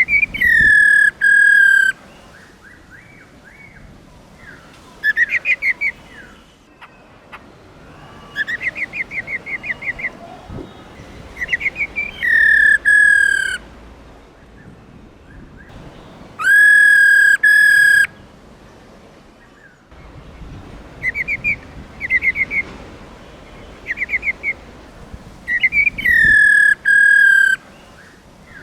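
Black-throated laughingthrush calling: short, rapid rattling trills, the female's 'ro ro' call, alternate with four long, loud whistled notes that drop slightly in pitch and then hold.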